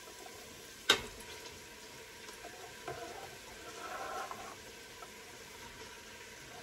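Chicken sizzling steadily as it sautés in oil in an Instant Pot, with one sharp knock about a second in and soft scraping as a plastic bench scraper gathers chopped onion across a cutting board.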